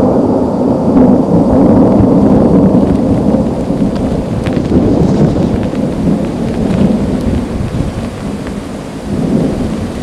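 Thunder rumbling loudly over steady rain. The rumble swells at the start, slowly eases, then swells again briefly near the end.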